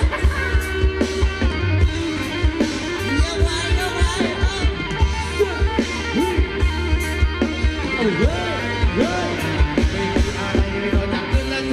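Live band playing Thai ramwong dance music: electric guitar over a steady drum beat, with a couple of sliding notes that rise and fall about two-thirds of the way through.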